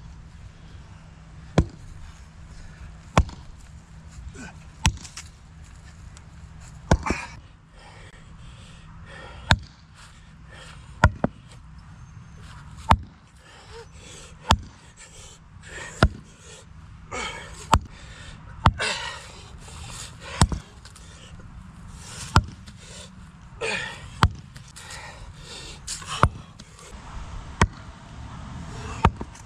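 Sledgehammers striking the tops of wooden stakes, driving them into the ground: a series of sharp knocks, one every two seconds or so, about seventeen in all.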